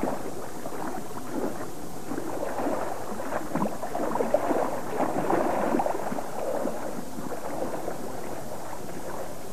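Splashing in shallow creek water as a hooked salmon thrashes and a wading angler moves around it, over the steady rush of the stream. The splashing is busiest in the middle.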